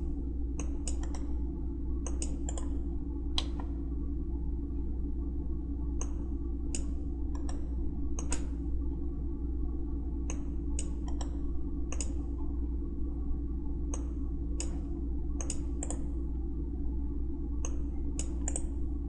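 Computer mouse clicking at irregular intervals, some clicks in quick pairs like double-clicks, over a steady low electrical hum.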